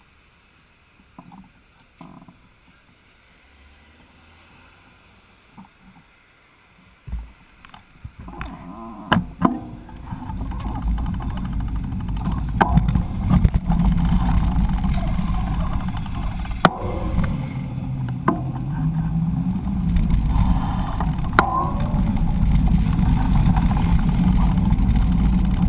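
Handling knocks on a GoPro action camera, then from about eight seconds in the loud, steady rumble of wind and road noise on its microphone as a mountain bike rides along a city street, with sharp knocks now and then as the bike jolts.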